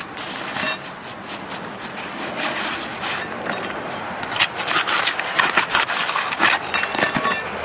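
Hook-blade roofing knife cutting through an asphalt shingle, a run of rough rasping scrapes with several stronger strokes in the second half.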